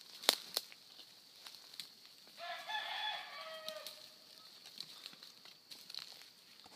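A young hunting dog gives one drawn-out, high-pitched bay, about a second and a half long and dropping slightly in pitch near its end, as the pups open on a rabbit. A few sharp crackles come just before it.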